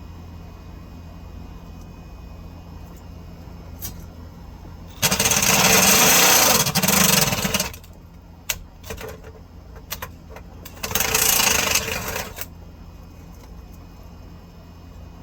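A handheld power tool run in two bursts, one of about three seconds and a shorter one of about a second and a half, with a few short knocks and clicks between.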